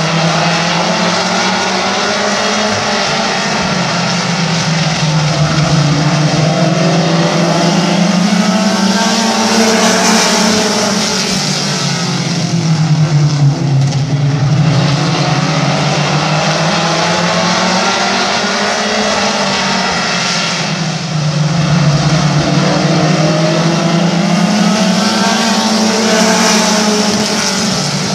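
A field of short-track stock cars lapping an oval. Their engines run together in a continuous drone that rises and falls in pitch every several seconds as the pack works through the corners and down the straights.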